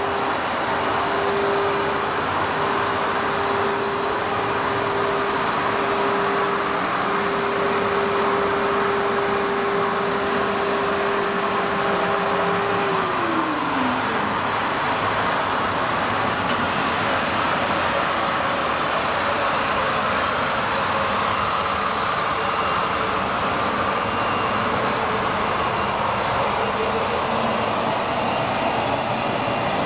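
WEEKE CNC router's spindle running at a steady high speed with a steady whine, then spinning down about 13 seconds in, its pitch falling as it slows. A steady rushing air noise, like dust extraction, runs under it throughout.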